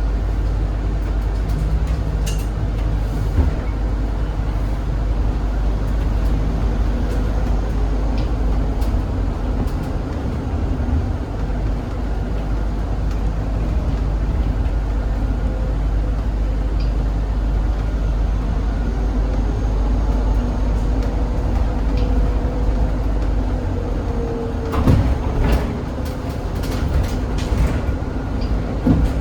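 Cabin noise of a Zhongtong hybrid range-extender bus on the move: a steady low rumble with road noise, and a faint whine that rises and falls about two-thirds of the way through. Several sharp knocks and rattles come near the end.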